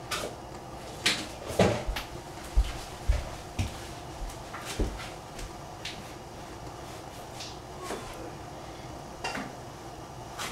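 Kitchen clatter: a series of irregular knocks and clinks from things being handled, most of them in the first five seconds and then a few scattered ones.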